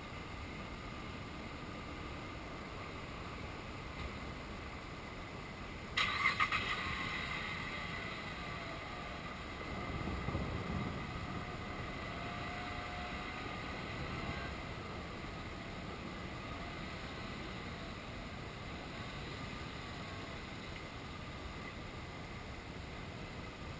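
Thunder from a nearby lightning strike: a sudden crackling clap about six seconds in that fades over a couple of seconds, then a low rumble a few seconds later, over a steady hiss.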